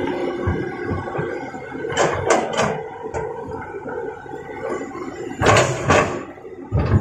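Two short bursts of rough scraping and knocking, about two seconds in and again around five and a half seconds, over a steady background of held tones.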